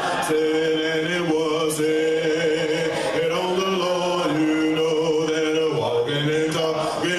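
Men's voices singing slowly, with long held notes in a chant-like style.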